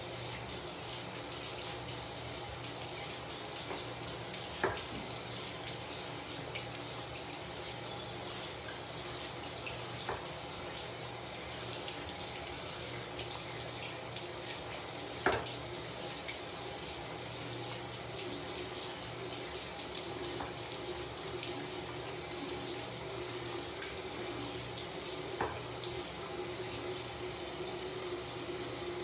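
Bathroom tap running steadily into a sink while a face is rinsed with splashed water, with a few sharper knocks.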